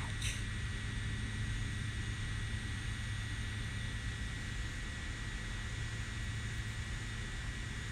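Quadcopter camera drone's propellers buzzing steadily in flight, a constant low hum with a thin high tone over it.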